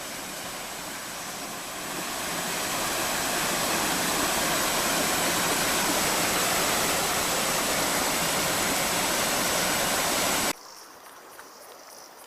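Waterfall: a steady, loud rush of falling water that starts suddenly, grows louder about two seconds in, and cuts off suddenly near the end.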